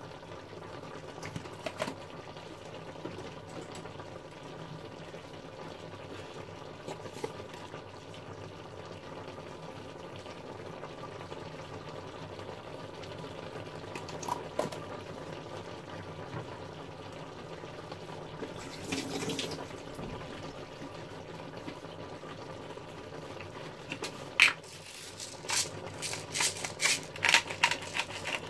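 Steady simmering of vegetables in a stainless steel pan, with a few light clicks. Near the end a hand-twisted pepper mill grinds in quick, irregular ratcheting clicks.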